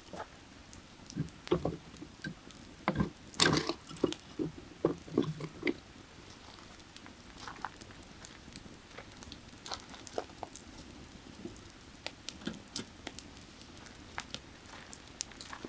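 Firewood crackling and popping as it burns, with a busy run of crackles in the first few seconds, then sparser pops, over the faint steady rush of a creek.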